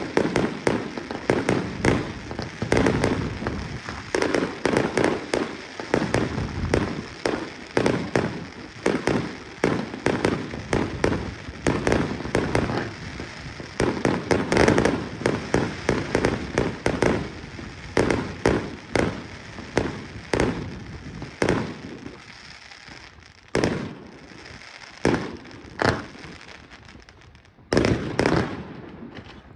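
Professional fireworks display: a rapid, continuous barrage of bangs and crackle from shells bursting overhead, thinning after about twenty seconds to a few separate bangs with gaps between them.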